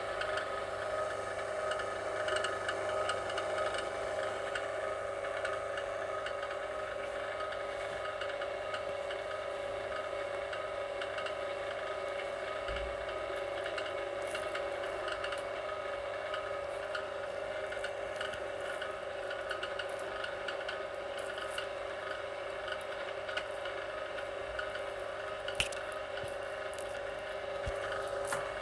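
VEVOR electric wire stripper's motor running steadily, a constant hum with scattered light clicks.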